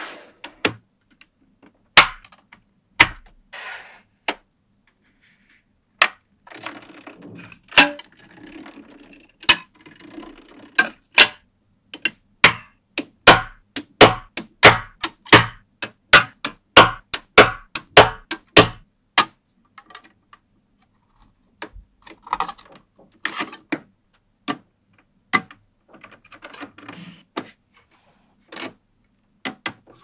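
Small neodymium magnetic balls clicking sharply as rows of them snap onto a magnet-ball structure, with softer rattling of balls between the clicks. In the middle stretch the clicks come quickly and evenly, about two a second.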